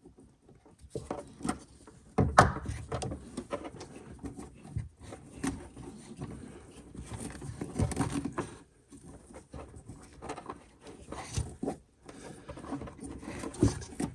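Car wiring loom and loose plastic interior trim being handled: irregular rubbing and scraping with scattered knocks, the sharpest about two seconds in and near the end.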